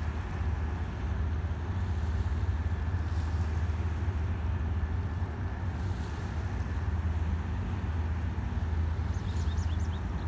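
Tugboat's diesel engine running with a steady low drone as the tug works a barge. A few short high chirps come near the end.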